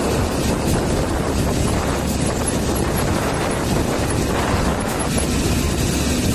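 Steady rush of a moving motorcycle on the highway: engine and road noise mixed with wind buffeting the microphone.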